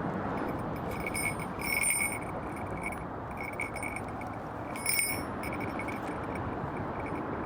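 Small falconry bell on a red-tailed hawk jingling in short shakes as the bird moves, loudest about two seconds and five seconds in, over a steady low rushing noise.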